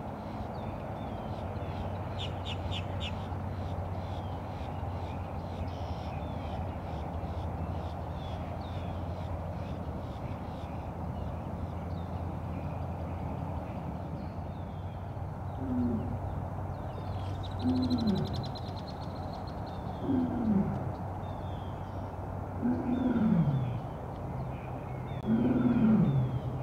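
Tiger calling in the second half: five short calls about two and a half seconds apart, each falling in pitch, the later ones longer and louder. Small birds chirp faintly behind it over a steady low hum.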